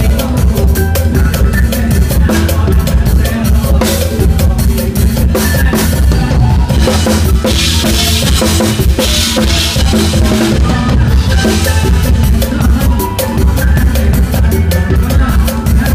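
Drum kit played live in a mor lam sing band, with bass drum and snare hits keeping a steady beat over the bass and the rest of the band. About halfway through there is a stretch of bright cymbal wash.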